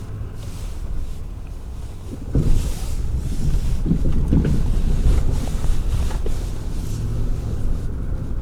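Truck driving on a rough dirt road: a steady low rumble of engine and tyres with wind noise, and a few knocks and rattles over bumps about two to four seconds in, after which it runs a little louder.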